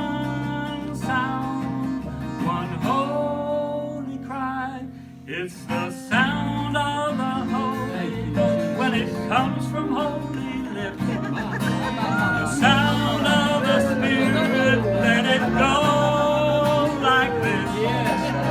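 A gospel song with acoustic guitar accompaniment and a man singing long, wavering held notes. It briefly drops off about five seconds in, then carries on.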